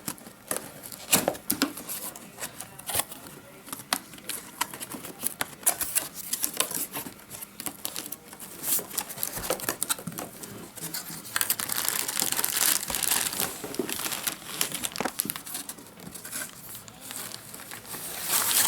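Cardboard box being opened and unpacked by hand: irregular rustling, crinkling and tearing of packaging with scattered sharp clicks, busiest in a stretch about two-thirds of the way through and again at the end.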